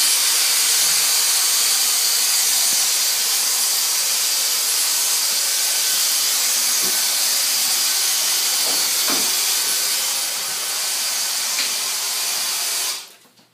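Dyson cordless handheld vacuum with a crevice nozzle running steadily, sucking dust off the slats of a louvred door: a loud high hiss with a faint whine that cuts off suddenly near the end when it is switched off.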